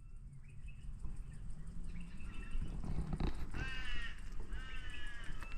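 A crow calling two long, harsh caws in a row, over a steady low rumble of outdoor noise, with a few faint bird chirps.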